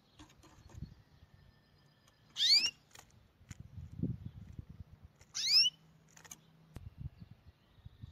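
Soft rustling as satin-ribbon petals are handled and threaded, broken by two short, high squeaks that rise in pitch, about three seconds apart.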